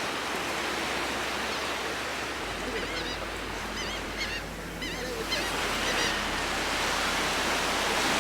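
Ocean surf washing steadily, with a run of short, repeated high bird calls through the middle.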